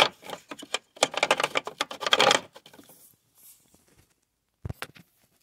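Rapid clicking and clattering of hard plastic and metal as the airbag control module is handled and worked down onto its mounting studs under the dash. A single sharp knock follows near the end.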